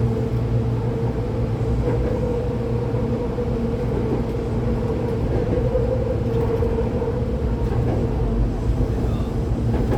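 Hankyu 8200-series commuter train heard from inside the car while running between stations: a steady low rumble of the wheels and running gear with a steady hum over it.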